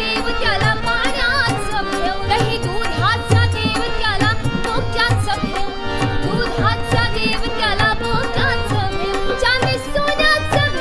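A woman sings a Marathi devotional bhajan in gliding, ornamented phrases, accompanied by harmonium drones and chords and a steady beat on a dholak.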